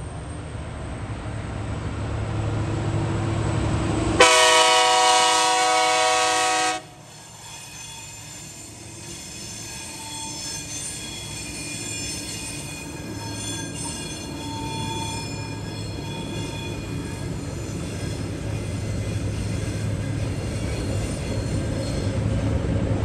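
TasRail TR class diesel locomotives approaching a level crossing, their rumble building, then a loud chord horn blast about four seconds in that lasts about two and a half seconds and cuts off sharply. The locomotives and container wagons then roll past in a steady rumble, with faint thin high tones over it.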